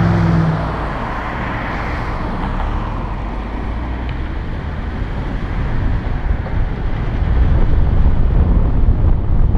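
Road traffic noise. A vehicle's engine hum fades out about half a second in, and a low rumble of wind on the microphone builds toward the end.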